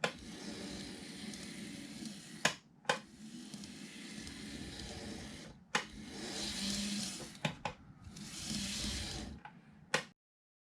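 Small N-gauge model train motor running with a whirring hiss in stretches of a second or two, broken by sharp clicks; it cuts off about ten seconds in.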